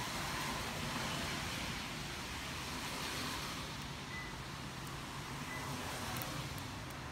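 Steady outdoor background noise, a wind-like hiss on the microphone, with a couple of faint short high beeps partway through.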